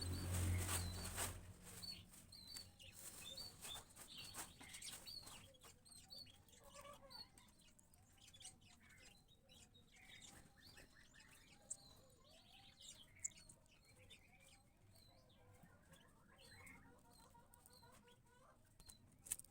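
Small cage birds, a canary and a young house sparrow, with short high chirps repeating about every half second, over wing flutters and rustling. A louder rustle comes at the start, and fainter, lower calls follow later.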